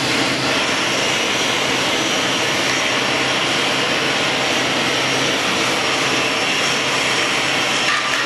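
Steady roar of a gas torch flame playing on a hot glass vase, over the constant burner roar of the glassblowing studio's glory hole.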